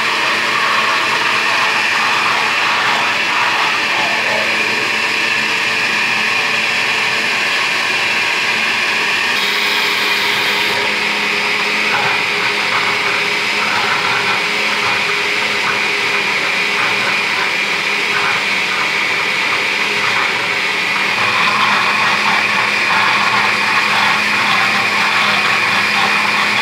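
Countertop blender running steadily, its jar full of a creamy lulo and milk mixture.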